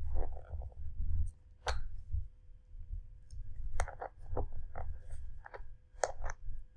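Scattered small clicks and taps of a metal power-lead plug being worked into its socket on the plastic housing of FPV video goggles, with low handling rumble from the hands on the goggles.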